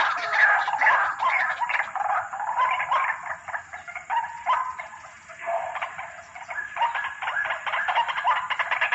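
White-breasted waterhen (ruak-ruak) calling: fast, repeated croaking calls that overlap as a dense chorus, thinning out briefly around the middle before building up again.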